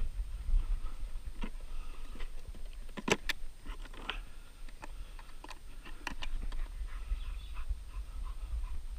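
Close handling noise: a scattered run of sharp clicks and knocks, the loudest two in quick succession about three seconds in, over a low rumble of movement. Birds chirp faintly behind.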